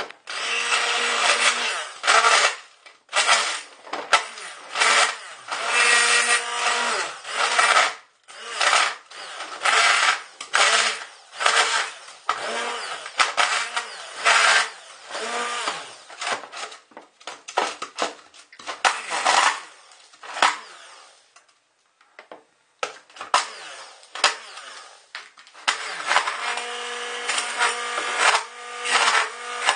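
Hand-held stick blender crushing ice cubes in a tall plastic beaker, switched on and off in repeated short bursts. After a brief pause about three-quarters through, it runs in a longer steady stretch near the end.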